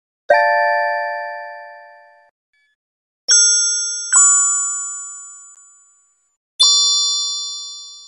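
Electronic chime tones of an emergency-alert sequence: four bell-like notes, each struck sharply and ringing out over about two seconds. One comes just after the start, two follow close together around three and four seconds in, and the last comes a little past six and a half seconds. The later three are higher in pitch than the first.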